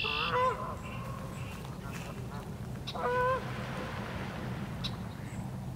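Canada geese honking on the water: two clear honks, one right at the start and another about three seconds in, with fainter calls from the flock in between.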